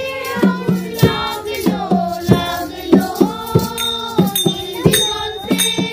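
Women and girls singing a song together to a harmonium, with a small two-headed hand drum keeping a regular beat.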